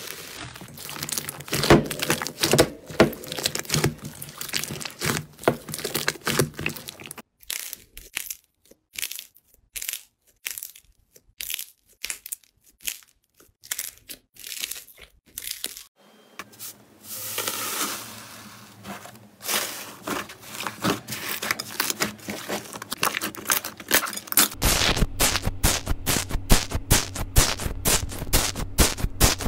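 Slime being worked by hand, crackling and clicking as it is squeezed, folded and pulled apart. The clicks come in scattered single pops through the middle, then turn into a fast, dense run of tiny pops near the end as a tool is pushed into bubbly foam slime.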